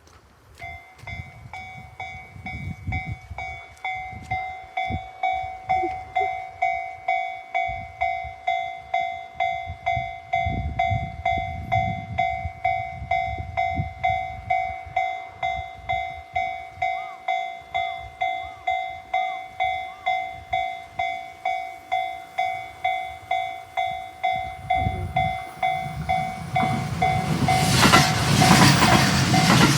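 Japanese railway level-crossing alarm starts about a second in, ringing a steady, evenly pulsed bell tone about twice a second. It warns that a train is coming. Near the end a train runs through the crossing with a loud, rising rush of wheel and body noise.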